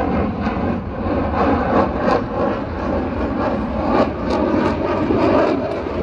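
F-35A Lightning II's single Pratt & Whitney F135 afterburning turbofan heard from the ground as the jet flies past, a loud steady rushing jet noise.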